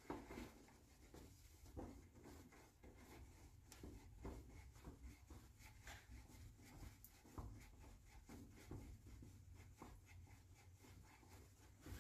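Faint, irregular rubbing and scuffing of a cloth shop towel and hand against a Donaldson oil filter canister as it is hand-turned on its mount.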